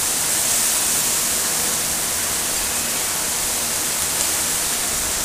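Chicken pieces sizzling on a very hot grill grate: a steady hiss, with a faint click about four seconds in.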